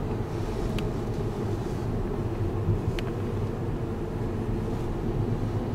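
Interior cabin noise of a Jaguar XJ Super V8 (X350) on the move: a steady low rumble of road and engine, with two faint clicks about one and three seconds in.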